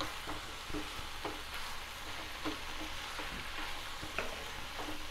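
Fenugreek leaves and chopped onions sizzling in a metal kadai as a spatula stirs them, with light, irregular scrapes of the spatula against the pan.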